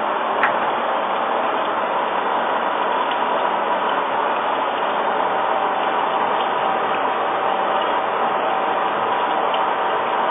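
Gear-cutting machine tool running steadily while cutting gear teeth: an even mechanical noise with a steady hum, a sharp click about half a second in and a few faint ticks.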